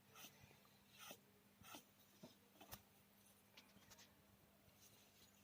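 Faint scratchy strokes and light taps of a marking tool drawn across fabric while a neckline is measured and marked, over a faint steady hum.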